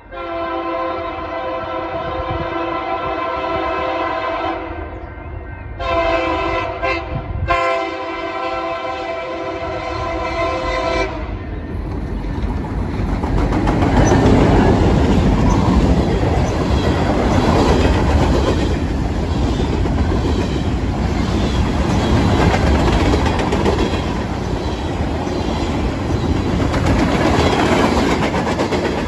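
Union Pacific diesel freight locomotive's air horn sounding for the grade crossing as the train approaches: a long blast, then shorter ones, then a final long blast ending about eleven seconds in. Then the lead locomotives and the freight cars roll past close by, their engines rumbling and their wheels clattering over the rail joints in a steady rhythm.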